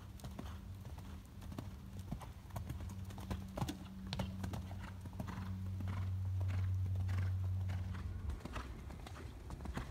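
Hoofbeats of a shod horse cantering over an arena's sand footing and jumping fences, an irregular run of dull thuds. Under them a low steady hum swells in the middle and stops about eight seconds in.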